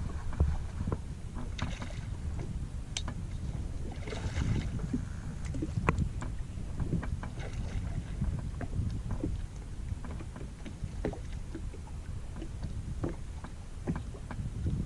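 Outdoor water sounds: short splashes and sloshing with many small knocks and clicks, over a low rumble of wind on the microphone.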